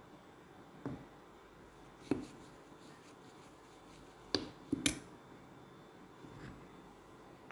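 A metal spoon clinking now and then against a glass bowl while stirring a wet ground green chili paste, with a quick run of three clinks about halfway through.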